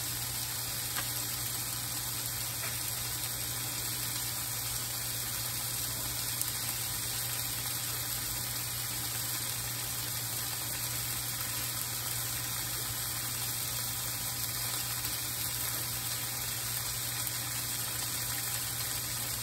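Yellow squash and onions frying in oil in a hot cast iron skillet, a steady even sizzle while they brown undisturbed, over a constant low electrical hum.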